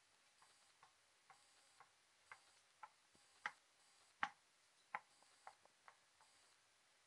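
Footsteps on hard steps: sharp clicks about two a second, growing louder to the loudest about four seconds in, then fading.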